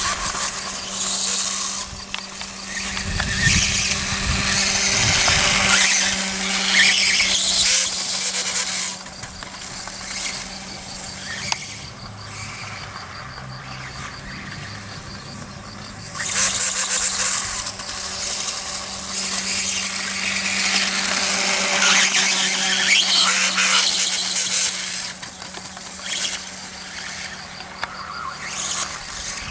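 Reely RC dirtbike running, its motor whining as it rides in two loud runs, a quieter stretch between them from about nine to sixteen seconds in.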